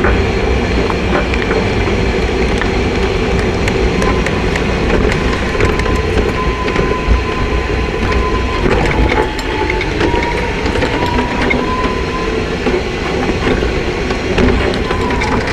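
Steady rumble and rattle of small wheels rolling over pavement, heard through a camera mounted low on the moving ride, with many small clicks and a faint thin whine through the middle.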